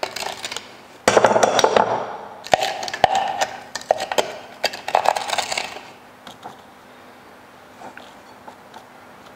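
A metal utensil scraping and clinking against bowls for about five seconds as coconut macaron batter is scraped and mixed. After that there are only a few faint taps of a fork in the thick mixture over a low steady hum.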